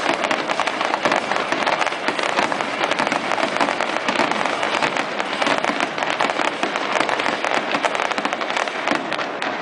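Fireworks display: a dense, unbroken barrage of aerial shell bursts and crackling effects, many bangs overlapping every second.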